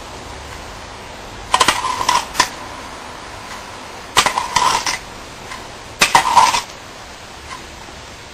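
A metal spoon clinking against a small metal cup of milk, in three short bursts of quick clinks about two seconds apart.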